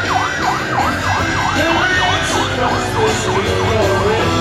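Fire engine siren on a fast yelp, about four falling sweeps a second, from an airport crash tender (Rosenbauer Panther) in a parade. The yelp weakens and dies away near the end.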